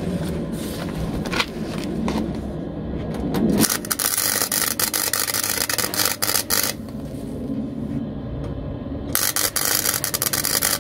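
Draper gasless flux-cored MIG welder on its lowest setting, arc-welding a steel repair panel: two runs of crackling, spitting arc, the first starting about four seconds in and lasting about three seconds, the second starting about nine seconds in. The flux-core wire spatters a lot.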